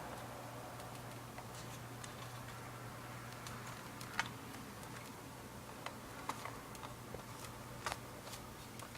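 Scattered small clicks and taps of laptop case parts being handled and fitted together, a few sharp ticks at irregular intervals, over a faint low steady hum.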